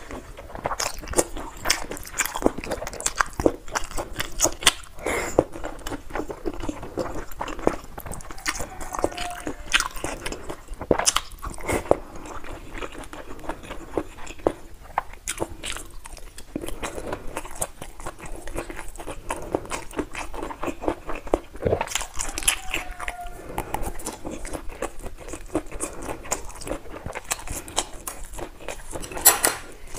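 Close-miked chewing with a mouthful of food, full of irregular crunching clicks.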